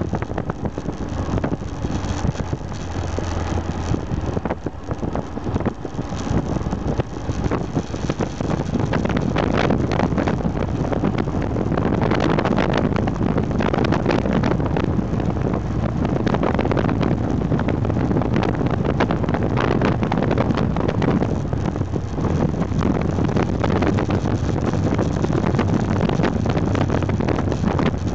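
Aprilia Pegaso 650 Strada's single-cylinder engine running under way, mixed with wind rushing over the microphone; the sound grows louder about ten seconds in.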